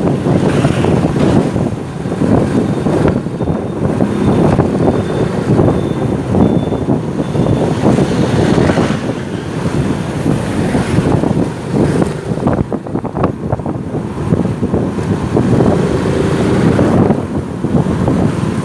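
Motorcycle ride through street traffic: the engine running under heavy wind buffeting on the microphone.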